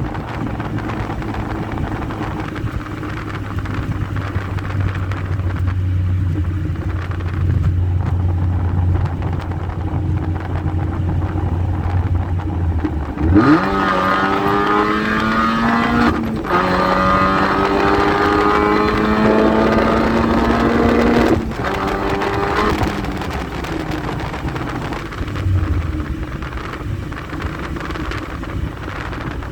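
Supercharged 2004 Mini Cooper S engine (Sprintex supercharger kit) running steadily at cruise, then revving hard about halfway through. Its pitch climbs, drops with a gear change twice, then settles back to a steady cruise.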